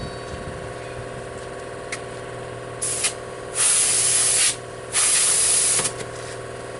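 Compressed air hissing out at a truck tire's valve stem in three bursts, a short one and then two longer ones of about a second each, while the valve core is dealt with on the inflating tire. An engine runs steadily underneath.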